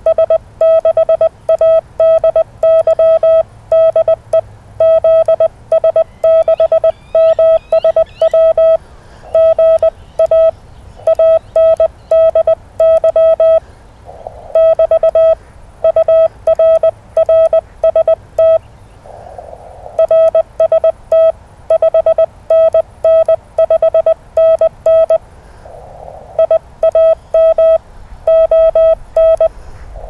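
Morse code (CW) from a ham radio transceiver: a single mid-pitched beep keyed on and off in dots and dashes at a steady pace, with a brief hiss twice in the pauses.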